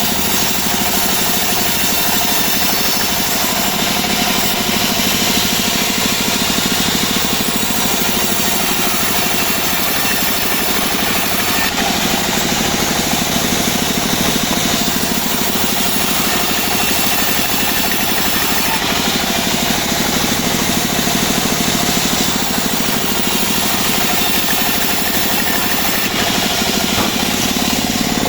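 Engine of a homemade portable band sawmill running steadily at a constant loud level, driving the saw while it cuts albasia wood.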